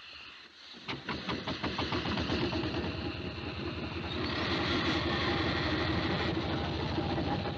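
Steam roller getting under way: separate chuffs start about a second in and quicken into a fast, steady mechanical beat.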